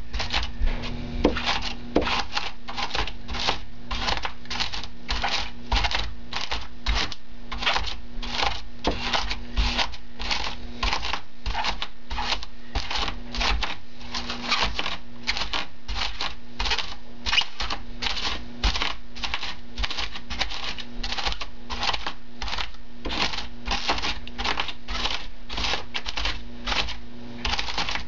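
A hand tool scraping and carving into extruded polystyrene foam board in quick repeated strokes, about two to three a second, each a short scratchy rasp as chunks tear away.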